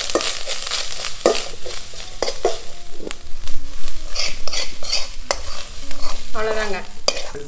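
Fingers stirring a crumbly mix of grated coconut, roasted cashews and dates in a steel bowl, with irregular clicks and scrapes against the metal. Near the end the mix is scraped out of the bowl onto a steel tray of steamed ragi puttu.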